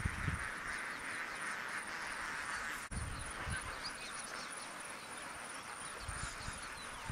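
A large flock of lesser and greater flamingos calling, a dense, unbroken mass of calls from many birds at once, with a few low rumbles now and then.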